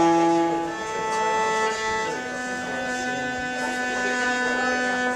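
Upright bass played with a bow: three long held notes that change pitch about a second in and again about two seconds in, the last held for about three seconds.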